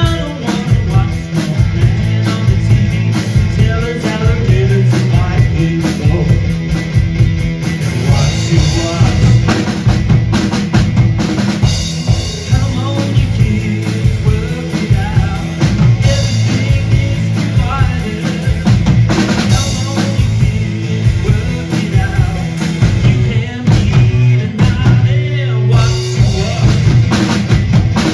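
Live rock duo playing an instrumental passage: a drum kit keeps a busy beat with bass drum, snare and rimshots over held guitar notes, with no singing.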